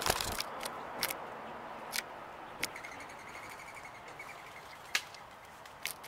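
Outdoor background hiss with scattered sharp clicks and taps, and a faint, thin bird trill in the middle.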